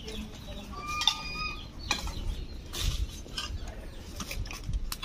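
A chicken gives one short, high, even call about a second in, among a few light knocks and rustles.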